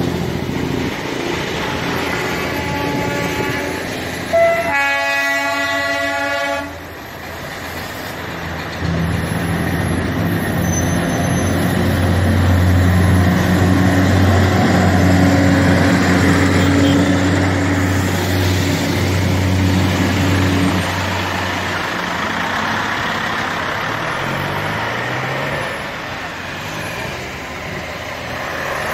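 Darjeeling Himalayan Railway NDM-6 diesel toy-train locomotive sounding its horn once for about two seconds, then its engine running with a steady low drone as it moves along beside the road.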